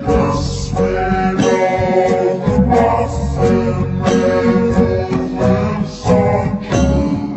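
Music playing: plucked guitar with a singing voice.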